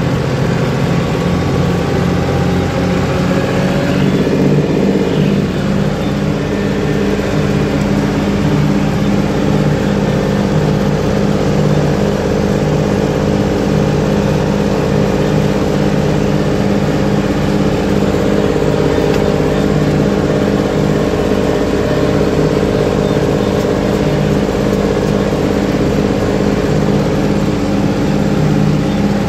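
Farm tractor engine running steadily under way on a dirt track, heard from inside the tractor's cab.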